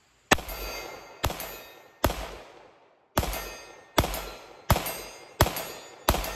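Eight 9mm pistol shots from a Canik TTI Combat fired in steady succession, about one a second with a slightly longer pause after the third, most followed by the ring of a distant steel plate target.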